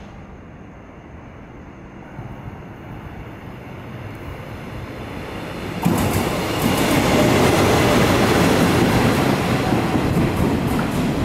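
Electric locomotive E202, hauling a Chu-Kuang Express passenger train, approaching and growing steadily louder. About six seconds in the sound jumps to a loud rush as the coaches pass close at speed, their wheels clicking over the rail joints.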